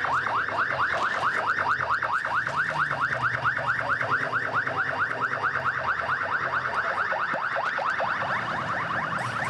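Emergency vehicle siren on a fast yelp, a rising wail that repeats about five or six times a second without a break.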